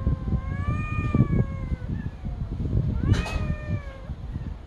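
A cat meowing: one long, wavering meow that fades out about two seconds in, then a second, shorter meow about three seconds in, over low background noise.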